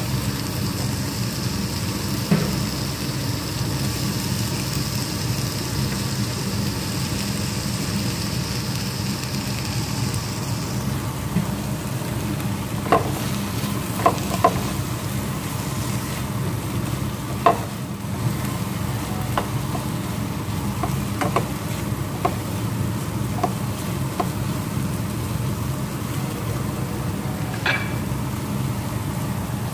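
Sliced vegetables with green bell pepper sizzling in oil in a frying pan as they are stirred with a slotted spatula, the spatula clicking against the pan several times in the second half. A steady low hum runs underneath.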